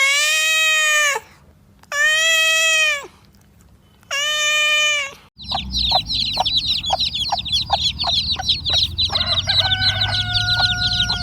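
Three long, even animal calls, each about a second long and two seconds apart. Then a hen clucking steadily, about three clucks a second, under the continuous high cheeping of a brood of chicks.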